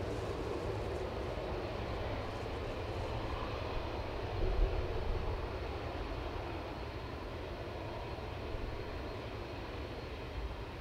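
Distant Boeing 767 jet engines running at low taxi power: a steady rush with a low rumble, swelling slightly about halfway through.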